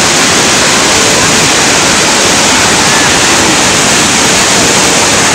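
Large mountain waterfall, the Jang (Nuranang) Falls, giving a loud, steady rush of falling water.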